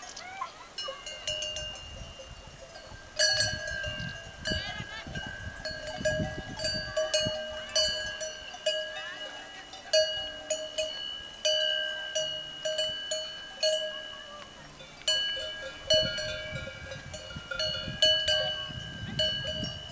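Cowbells on grazing livestock clanking at irregular intervals, roughly once a second, each clang ringing on in a steady metallic tone.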